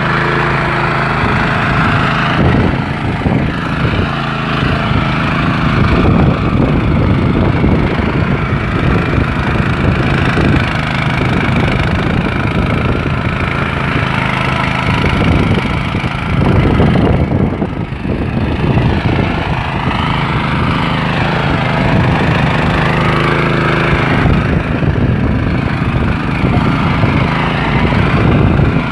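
Walk-behind rotary tiller's small engine running continuously under load as its tines churn dry soil, the level rising and falling a little as the load changes.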